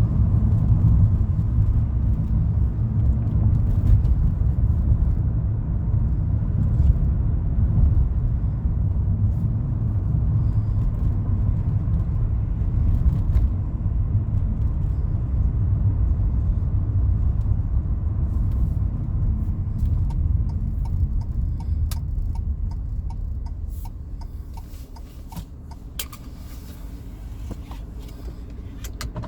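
Car road noise heard from inside the cabin: a steady low rumble of tyres and engine at freeway speed that falls away as the car slows in the last few seconds. A quick run of regular ticks begins shortly before the slowdown.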